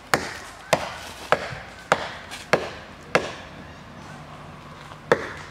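Wood being chopped with a blade: six even strikes about every 0.6 s, a pause of about two seconds, then one more strike near the end.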